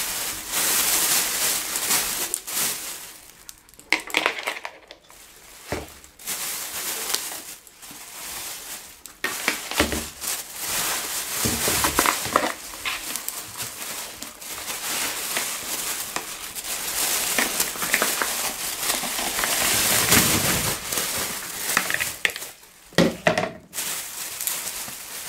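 Thin plastic bag crinkling and rustling while whole button mushrooms (champignons) are tipped from a plastic bowl into it and tumble in, with short knocks among the rustle.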